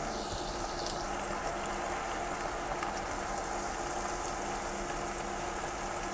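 Thick stir-fry sauce simmering in a nonstick wok: a steady low bubbling with a few faint crackles, over a faint steady hum.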